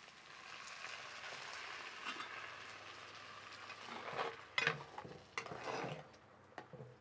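Blended tomato-chile salsa poured into a hot clay cazuela of fried dried meat and egg, sizzling steadily as it hits the pan. About four seconds in, a spatula stirs it, knocking and scraping against the clay pot in a few sharp clicks.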